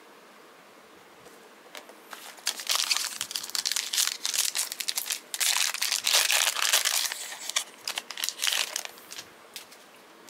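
Panini Prizm trading-card pack wrapper being torn open and crinkled. A dense run of sharp crackles starts about two seconds in, is loudest in the middle and thins out near the end.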